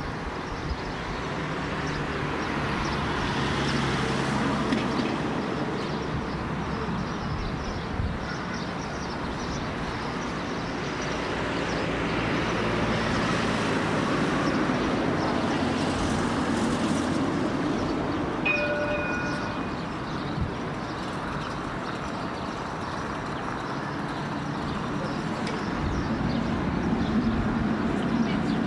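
Street traffic: road vehicles passing one after another, the sound swelling and fading, with a short beep about two-thirds through. A tram coming closer near the end.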